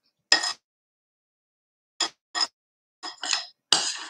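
Metal spoons scraping and clinking against a glass mixing bowl and against each other while scooping up muffin batter: a handful of short scrapes and clinks with gaps between.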